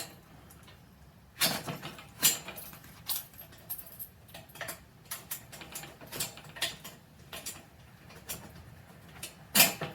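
Irregular metal clinks and clanks as the steel hand truck and its new bent-rod hitch pin clip are handled and fitted, with louder knocks about a second and a half and two seconds in and another near the end.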